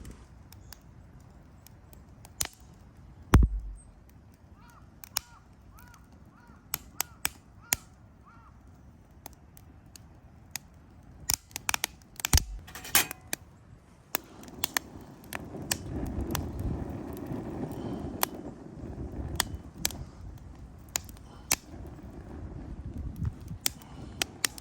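Firewood crackling with irregular sharp pops and snaps, the loudest a few seconds in. A low rushing sound comes in about halfway through.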